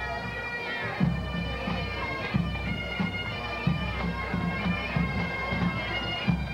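A marching pipe band playing: bagpipes sounding steady drones under the chanter melody, with drums beating a regular marching pulse.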